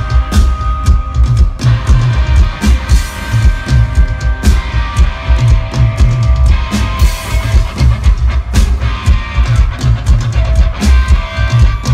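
Live rock band of guitar and drums playing an instrumental passage, with a driving drum kit beating steadily under electric guitar.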